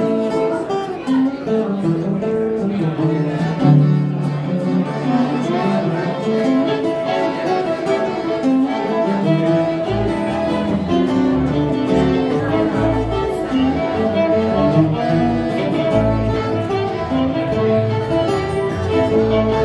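A live string band plays an instrumental passage: fiddle, acoustic guitar, electric bass and piano accordion. Deep bass notes come in strongly about halfway through.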